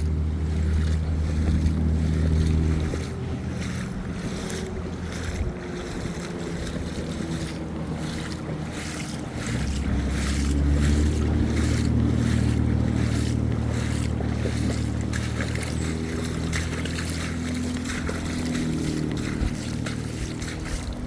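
Wind buffeting the microphone in heavy low gusts over the steady rush of a flooded creek.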